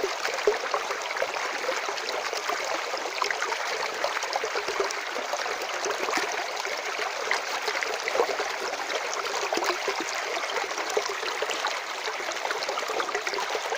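Natural running water flowing and splashing steadily, a dense patter of small splashes over a constant rush.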